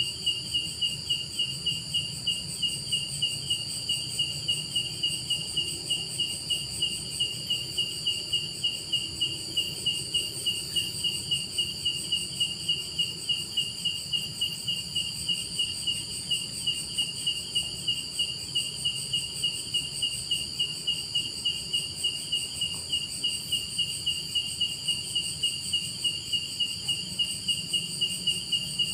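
Night insects calling: one chirps in a fast, regular pulse over a steady, unbroken high-pitched trill from others.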